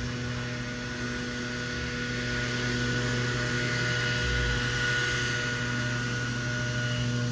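Small engine of neighbouring yard-service lawn equipment running steadily in the background, a continuous drone with a high whine that swells a little midway.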